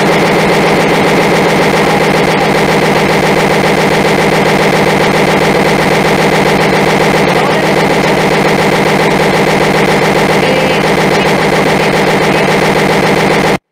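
Google Meet call audio glitching: a loud, steady, rapid machine-gun-like stuttering buzz loops from the shared presentation and then cuts off suddenly near the end. It is the sign of the meeting freezing up.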